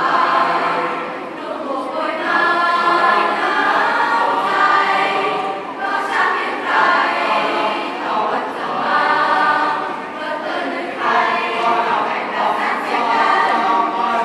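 Student choir singing a choral piece in harmony, the voices joining in parts. The phrases break off briefly about every four seconds.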